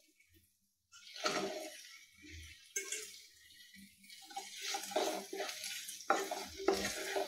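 Fried potato cubes tipped into a nonstick kadai of onion-tomato masala and stirred in with a wooden spatula, starting about a second in. There is scraping and clattering against the pan, with a few sharp knocks over a soft sizzle.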